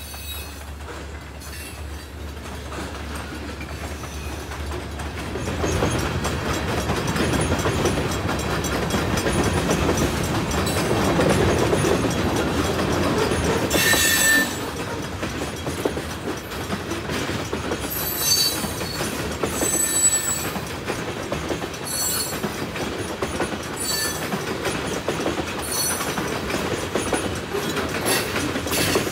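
Ann Arbor Railroad freight train passing close by: its rumble builds from about six seconds in and is loudest around the middle. After that the cars roll past with clicking wheels and repeated short, high squeals of wheels on the rail.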